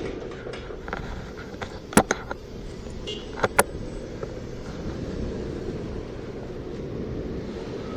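Steady low rumble of wind and wheel noise while riding an Inmotion V10F electric unicycle, with a sharp knock about two seconds in and two more close together about a second and a half later.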